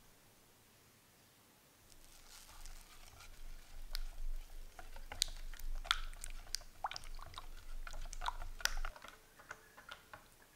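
Silicone-coated balloon whisk beating a runny egg-yolk, oil and milk batter in a glass bowl: an irregular run of quick clicks and taps of the wires against the glass, starting about two seconds in and thinning to a few taps near the end.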